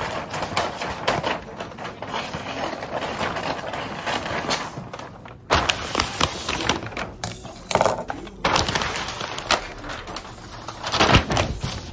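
Gift wrapping paper being handled, rustling and crinkling, with sharper crackles and knocks now and then.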